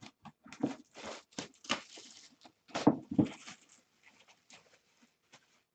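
A box of autographed football jerseys being opened by hand: irregular rustling, crinkling and tapping of cardboard and plastic packaging, loudest about three seconds in, then trailing off into a few faint ticks.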